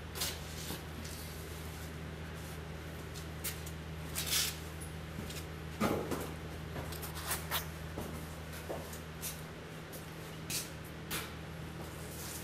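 Scattered knocks, clicks and one heavier thud of steel truck parts being handled and set in place during assembly of an electric locomotive truck, over a steady low hum. The thud comes about six seconds in, with a short scrape a little before it.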